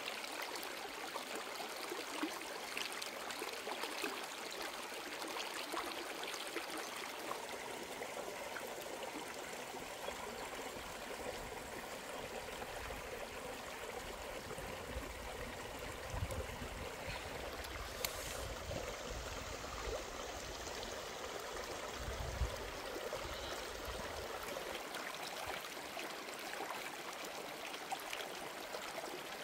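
Shallow rocky stream running steadily, with a few small clicks and a sharp click about eighteen seconds in.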